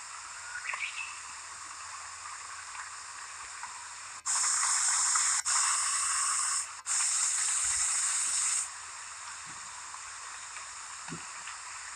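Steady outdoor background of chirring insects. About four seconds in, a much louder, even hiss starts abruptly, breaks off briefly twice, and stops suddenly after about four and a half seconds.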